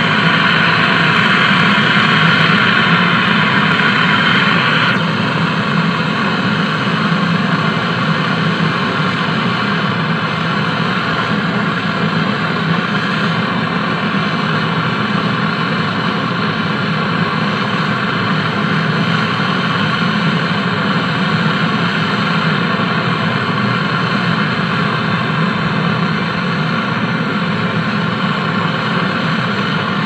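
Gas brazing torch flame running steadily, a loud hissing roar with a tonal hum, as a refrigerator's charging valve is brazed onto its copper tubing. Its higher hiss eases about five seconds in.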